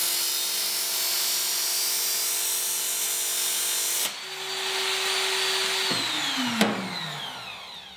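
Work Sharp Ken Onion belt sharpener grinding a machete's steel edge on its coarse red abrasive belt, a steady hissing grind over the motor hum. About four seconds in the grinding cuts off as the worn-out belt fails, the motor hums on unloaded for a couple of seconds, then winds down falling in pitch, with a sharp click partway through.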